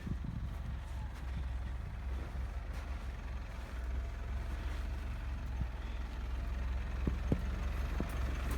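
An off-road vehicle's engine running with a steady low rumble as the vehicle works on a slope, with a couple of faint knocks about seven seconds in.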